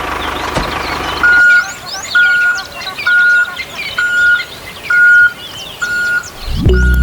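A small motor runs for about the first second and stops. Then comes a steady reversing-alarm beep, seven even beeps about once a second, over chirping birds. Music comes in near the end.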